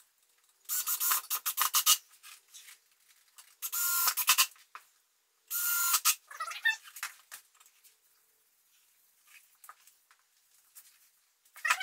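Squeeze bottle of wood glue sputtering and squeaking as glue is squeezed out along the panel edges, in three short bursts within the first six seconds, followed by faint scattered ticks.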